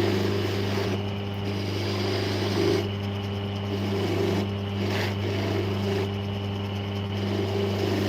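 A small electric motor running steadily with a constant hum.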